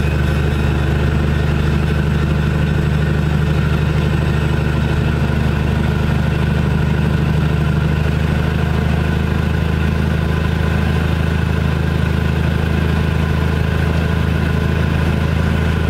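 Diesel engine of a GE 25-ton locomotive running at a steady, unchanging speed.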